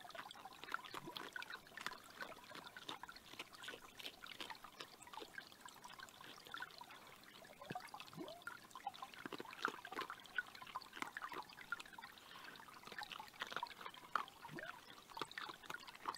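Small forest creek running, a faint and steady irregular patter of little water sounds.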